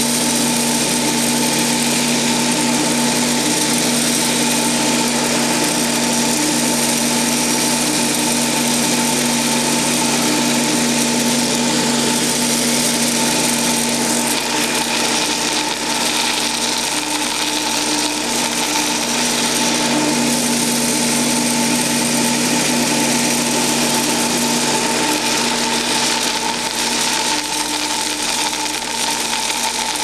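Ruwac DS1220 3-horsepower continuous-duty industrial vacuum running steadily with a whine, sucking wood pellets up through a metal wand and hose.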